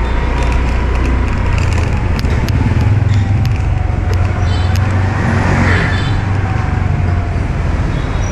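Riding noise from a Honda Vision motor scooter in city traffic: a steady low rumble of engine, tyres and wind, with a faint engine whine drifting slowly lower and a brief swell of louder hiss about five and a half seconds in.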